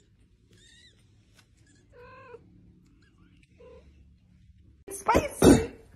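A cat meowing: a few short, faint mews, then two clearer meows about two and three and a half seconds in. A much louder voice-like sound comes near the end.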